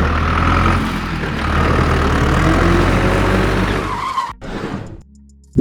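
A motor running loudly with a rough, noisy rasp over a low hum, its pitch rising slightly near the middle, cutting off abruptly about four seconds in.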